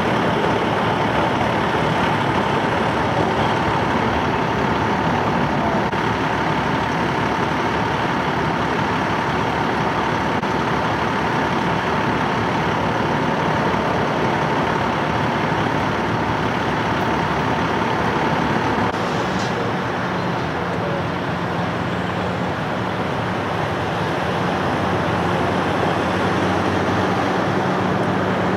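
Steady engine and roadway noise from heavy trucks idling at a freeway roadside. A steady whine stops about two-thirds of the way through, and a lower, humming engine note takes over.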